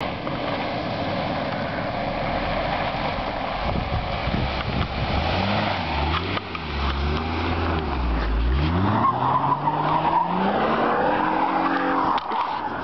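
Holden Commodore's 3.6-litre V6 revving up and down several times during a powerslide, with tyre and road noise throughout. The engine pitch starts to swing about four seconds in, dips, then climbs again toward the end.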